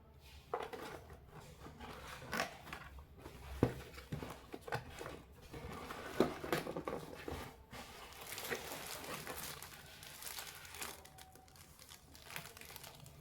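Plastic packaging crinkling and rustling as it is handled, with irregular crackles and a couple of sharper knocks.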